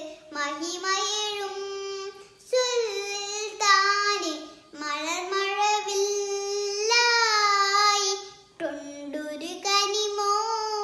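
A young girl singing a Malayalam song solo without accompaniment, in long held, gently wavering phrases with short breaths between them.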